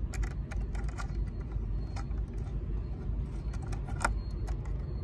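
Light metallic clicks and clinks of a multitool's screwdriver turning a screw by hand into the stainless steel cover of a solar vent fan, one sharper click about four seconds in, over a steady low rumble.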